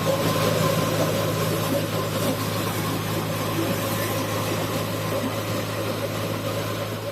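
Pigeon pea threshing machine running steadily, a constant engine-driven hum with a rushing, noisy layer over it, dipping slightly near the end.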